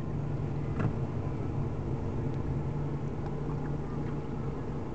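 Boat motor running at a steady speed: an even low drone, with a single short click a little under a second in.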